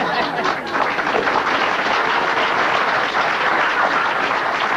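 Theatre audience applauding and laughing in a dense, steady wave after a comic punchline.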